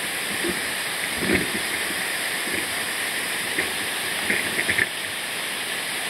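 Small waterfall rushing steadily over rocks, with a few light knocks about a second in and again near the end.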